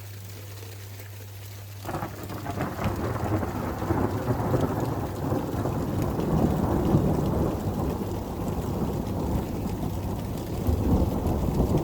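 Thunder during a storm: a loud rumble breaks in suddenly about two seconds in and rolls on, swelling near the middle and again near the end, with rain falling.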